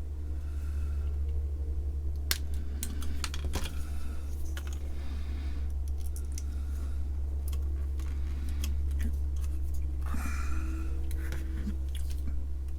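Scattered sharp clicks and snips of small hand tools, with a brief rustle near the end, as heat-shrink tubing is cut and fitted over a wire joint; a steady low hum runs underneath.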